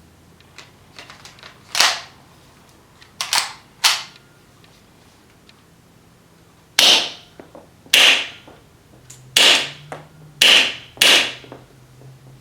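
Kmp9R gas blowback airsoft gun firing about eight single shots at irregular intervals, each a sharp crack. The muzzle is stock, with no adapter or amplifier fitted.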